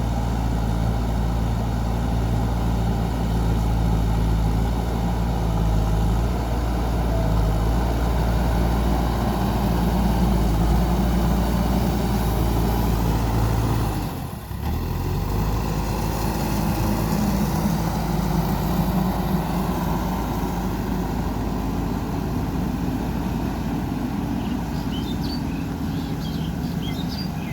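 JCB 3DX backhoe loader's diesel engine running steadily while it works, with a short drop in the sound about halfway through.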